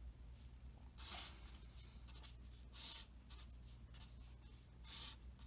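Pen drawing lines on paper on a clipboard: faint scratchy strokes, three of them clearer, about two seconds apart.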